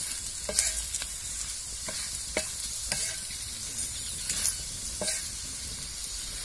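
Masala-coated okra sizzling as it fries in oil in a wide metal pan. It is stirred constantly on a low flame, with the scrape and tap of a wooden spatula about every second.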